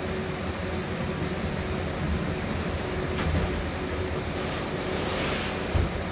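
A large flexible plastic light-box sign panel swishing as it is tipped down onto a worktable, landing with a low thud near the end, over a steady background hum.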